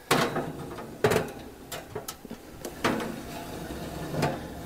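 Stainless steel roasting pan being slid into an oven: a series of metal knocks and scrapes from the pan, the oven rack and the door, about six in all. The loudest come right at the start and about a second in.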